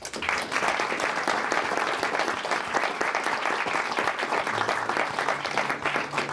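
Audience applauding, many hands clapping at once. The applause starts abruptly and holds steady.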